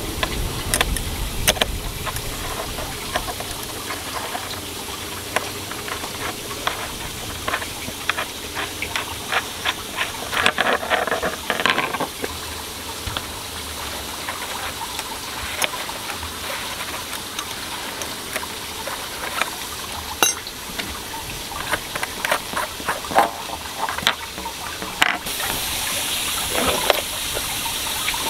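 Stainless-steel deck fill caps being worked open with a metal deck key: scattered clicks and scrapes of metal on metal. Under them a steady rush of running water, louder and steadier from about 25 seconds in.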